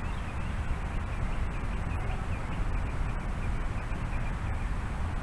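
Outdoor ambience: a small bird chirps over and over, faint and quick, above a steady low rumble.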